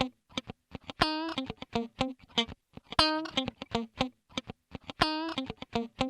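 Background music: a plucked guitar riff, a phrase of quick notes repeating about every two seconds.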